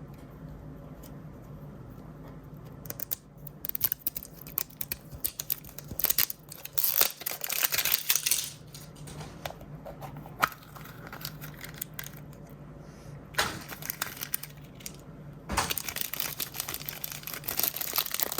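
Plastic blind-bag packaging being torn open and crinkled by hand: irregular crackling and rustling that starts about three seconds in, with a quieter stretch of scattered clicks in the middle and a second burst of crinkling near the end. A faint steady hum sits underneath.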